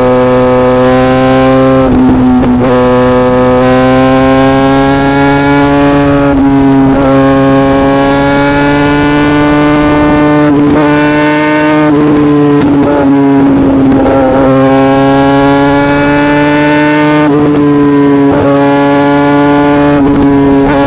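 Yamaha YZF-R6's 599 cc inline-four engine through an SC Project exhaust, running at high, fairly steady revs. The pitch creeps up slowly and dips slightly several times.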